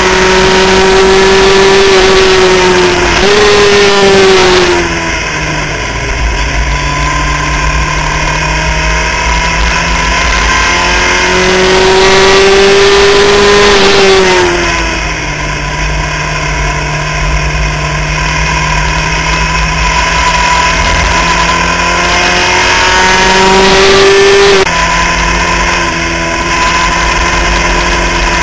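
Onboard sound of a Skip Barber formula race car's engine at racing speed. The pitch climbs for long stretches, drops sharply at upshifts about three seconds in and near the end, and falls away twice more gradually as the car slows for corners.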